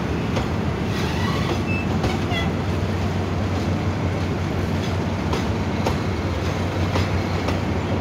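Eastern & Oriental Express passenger carriages rolling slowly past: a steady rumble of the train's wheels on the rails, with clicks as the wheels cross rail joints.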